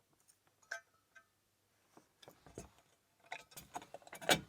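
Small metal tools and lock parts clinking and clicking against each other as they are handled, with a short metallic ring on some strikes. The clinks come sparsely at first, then more often in the second half, the loudest just before the end.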